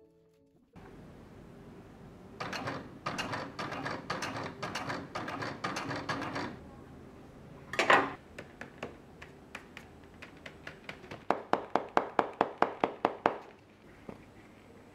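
Sharp taps and knocks: an uneven run of quick taps, one loud knock about eight seconds in, then an even run of about five taps a second.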